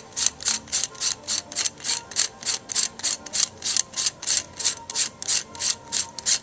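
Threaded lens cover of a 50 W HID flashlight being unscrewed by hand, its threads rasping in short scratchy strokes, about four or five a second, in an even rhythm.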